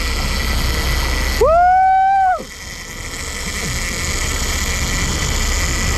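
Steady rush of a boat's engine and churning water during a fight with a giant bluefin tuna on rod and reel. About a second and a half in, a loud held shout lasts nearly a second.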